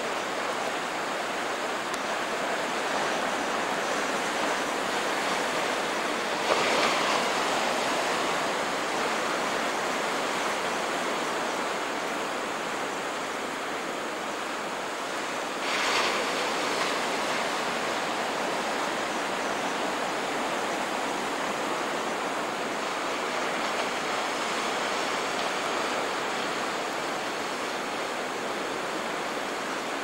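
Ocean surf washing against the shore as a steady rush, with two brief louder surges about six and a half and sixteen seconds in.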